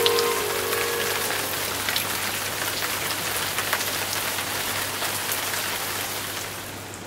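Steady rain falling on wet pavement, an even hiss with scattered drop ticks, fading down near the end.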